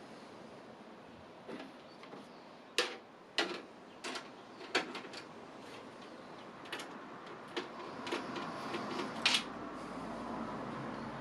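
Scattered clicks and knocks of hard computer parts and screws being handled, with a few sharp ones in quick succession about three to five seconds in and another near the end.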